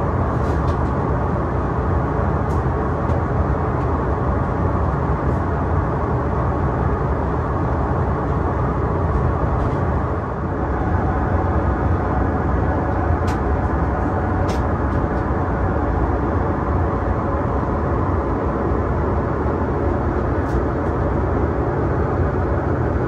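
Steady cabin noise of a Boeing 777-300ER in cruise: a deep, even rush of airflow and engines. There are two faint clicks about halfway through.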